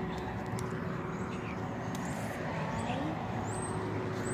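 Steady city background hum of distant street traffic.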